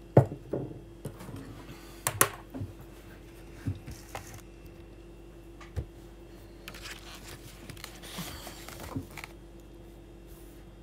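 Scattered clicks, taps and light rustles from a phone being handled at close range, with the loudest knocks right at the start and about two seconds in, over a steady low hum.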